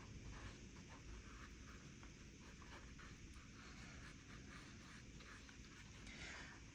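Very faint, irregular small scratches and taps of a watercolour brush dabbing paint onto sketchbook paper, over low room hiss.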